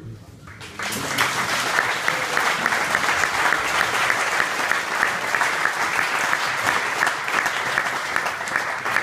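An audience clapping: applause breaks out about a second in and carries on steadily, easing off a little near the end.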